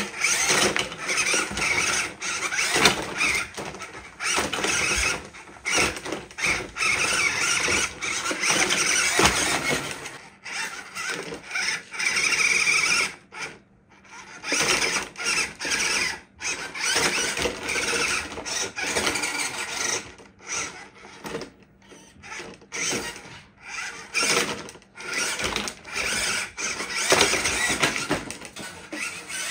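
A 1/16 scale RC Toyota Land Cruiser 80 crawler's small electric motor and gearbox running in many short stop-start bursts as the model drives and climbs. There are quieter gaps with fewer bursts around the middle.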